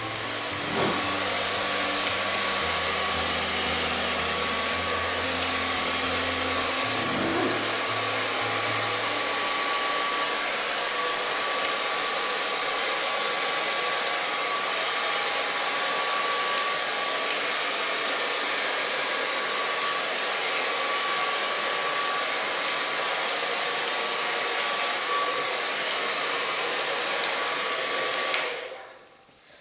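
Handheld hair dryer running steadily, a rush of air with a thin steady motor whine, switched off near the end.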